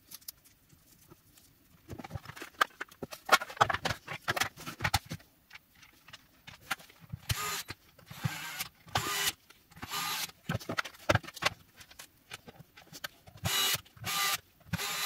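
Plastic battery-pack housing and parts rattling and clicking as they are fitted back together, then a DeWalt cordless gyroscopic screwdriver whirring in several short bursts as it drives the case screws.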